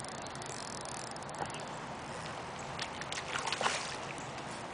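A hooked fish splashing at the pond surface: a few short, irregular splashes about three seconds in, over a steady outdoor hiss.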